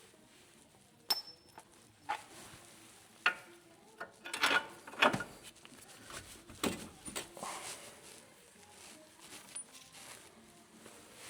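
Metal coilover parts and hand tools being handled during assembly: a series of separate sharp clinks and knocks, a second or so apart, with quieter shuffling between.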